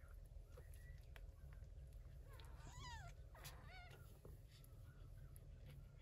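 Two short, faint kitten mews in the middle, about half a second apart, the first falling in pitch.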